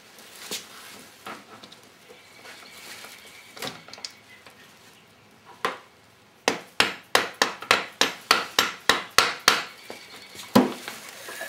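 Hand work on the Yamaha YZF600 engine's starter clutch and gears: light handling clicks of the parts. Then a quick run of about a dozen sharp knocks, about four a second, and one louder knock a second later.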